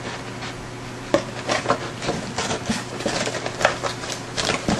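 Small cardboard model-kit box handled and turned over in the hands: irregular light knocks, taps and rubbing on the cardboard.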